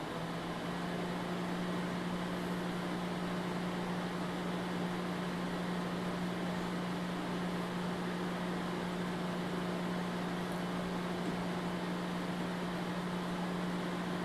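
Microwave oven running, heating a frozen lasagna: a steady electrical hum with fan noise.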